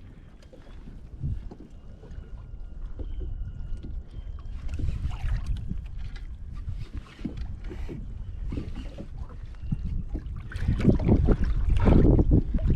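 Wind rumbling on the microphone of a small fishing boat, with scattered knocks and handling noises. The rumble grows louder near the end.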